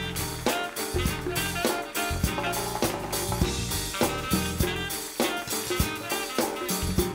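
Upbeat swing-jazz band music with a drum kit keeping a steady beat and brass playing over it.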